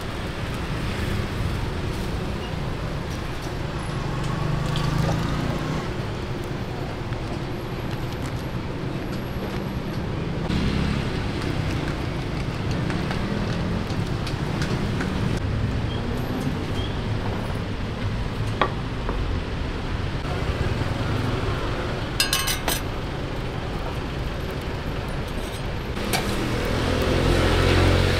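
Steady roadside traffic rumble, with occasional metallic clinks and oil being poured from a plastic pouch onto a flat steel roti griddle.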